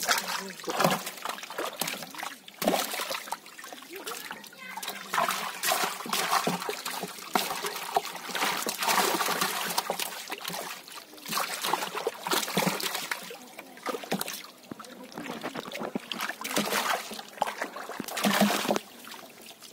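Shallow water splashing and trickling in irregular bursts as hands reach into a drawn-in fishing net to grab the caught fish.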